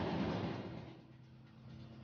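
Tractor running with a walnut sweeper, its engine hum under a loud rushing sweep noise that fades away about a second in, leaving only a faint steady hum.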